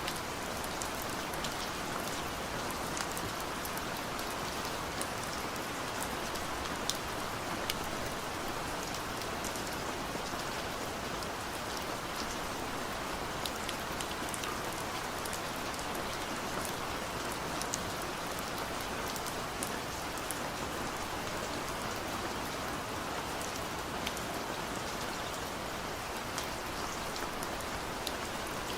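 Steady rain, a dense even hiss with many individual drops ticking sharply on a surface. No thunder.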